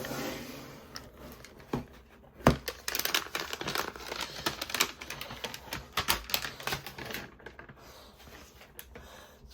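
Protective wrapping being peeled off a new MacBook Air: an irregular run of crackling, crinkling and sharp clicks. There are a couple of louder snaps about two seconds in, and the crackle is densest from about three to seven seconds in.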